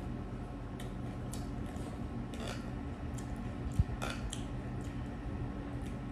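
Eating sounds: chewing and squishy mouth noises, with a metal fork and plastic spoon clicking and scraping in a glass bowl of noodle soup. One sharp thump comes a little before the middle, over a steady low hum.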